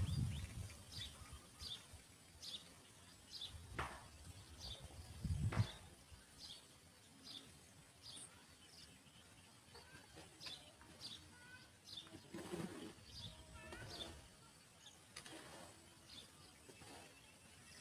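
A bird chirping over and over, short high chirps repeated at a steady pace, with two soft low thumps a few seconds in.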